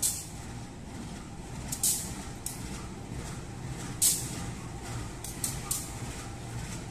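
CC201 diesel-electric locomotive's engine running with a steady low hum, broken by several short, sharp hisses, the loudest about four seconds in.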